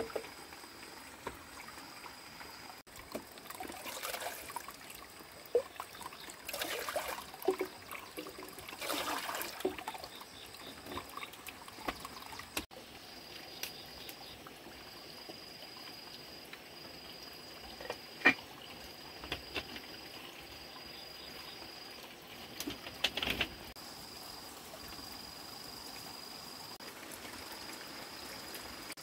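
Water trickling into a wooden log trough, with splashing and handling noise in the first ten seconds as something is washed in a metal bowl, and a couple of sharp clinks in the second half. An evenly pulsed high tone repeats throughout.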